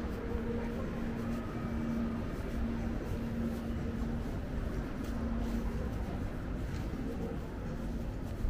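City-street ambience: a steady low rumble with a steady mechanical hum running through it.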